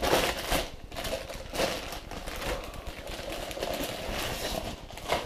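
Clear plastic bag crinkling and rustling in irregular crackles as a boxed studio light is handled and unwrapped from it.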